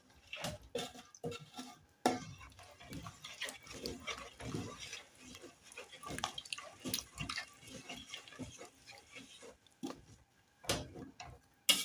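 Spoon stirring a thick beef stew in a pot: irregular wet squelches and scrapes, with light knocks of the spoon against the pot and a sharper knock near the end.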